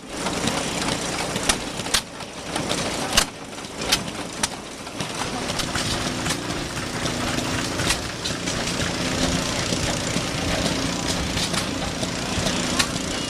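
An engine running, with sharp irregular clicks or pops over the first few seconds, then settling into a steadier drone from about five seconds in.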